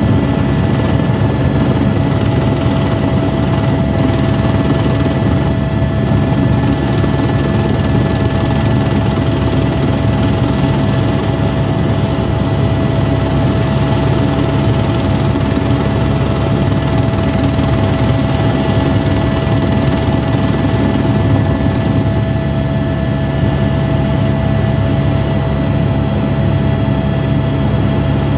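Helicopter in flight heard from inside the cabin: a loud, steady drone of the rotor and turbine with a constant whine over it.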